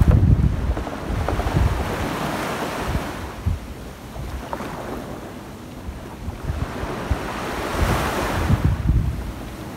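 Small waves breaking and washing up a sandy beach. The surf swells about two seconds in and again near the end, with wind buffeting the microphone.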